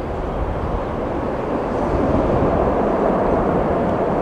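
Jet engines of a departing Airbus widebody airliner at takeoff thrust: a steady, dense jet roar heard from behind, growing louder about two seconds in as the aircraft lifts off.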